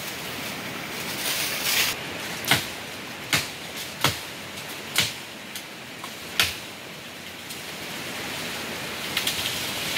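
Sharp chopping strikes of a hand blade cutting fodder branches in a tree, about five irregular blows roughly a second apart. Under them runs a steady rush of water flowing beneath the rocks.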